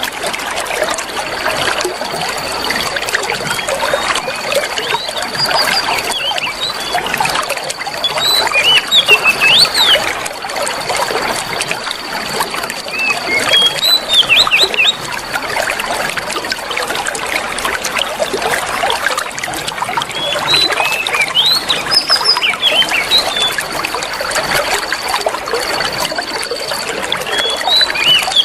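Water trickling steadily, with small birds chirping in short quick bursts over it. A thin, steady high-pitched tone holds for several seconds at a time and breaks off briefly now and then.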